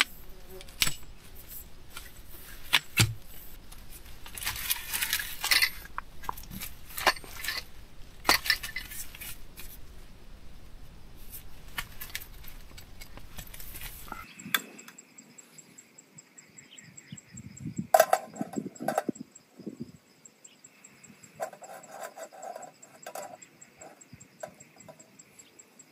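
Metal camping gear being handled: light metallic clicks, clinks and clatters, with wind buffeting the microphone through the first half. About halfway the wind drops away and a few quieter clatters sound over steady insect chirring.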